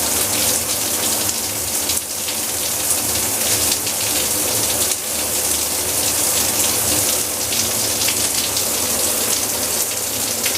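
Shower head spraying water steadily into a bathtub, a constant hiss of falling water.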